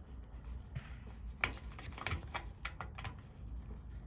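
Hands handling dryer wires and connectors: light rubbing with about half a dozen small, sharp clicks, most of them in the middle stretch.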